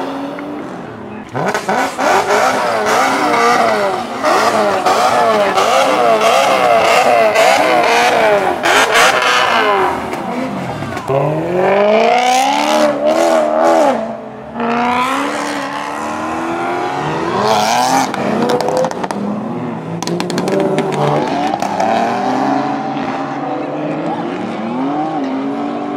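Performance car engines revving hard as cars pull away one after another, the pitch climbing and dropping again and again, with steep rising sweeps under full throttle about halfway through and a short dip in loudness just after.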